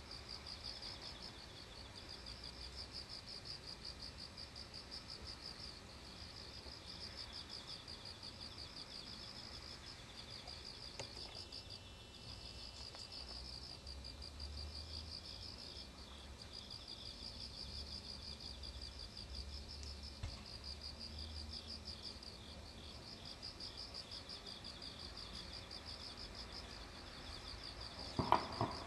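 Insects chirping in a steady, pulsing trill, broken into repeated bouts, with a second, lower chirping under it and a faint low rumble. A short loud knock comes near the end.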